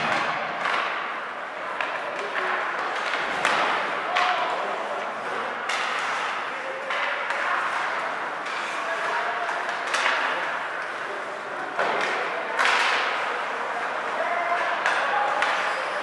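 Ice hockey game audio in a rink: sharp clacks and thuds of sticks and puck, skates scraping and hissing on the ice, and indistinct voices.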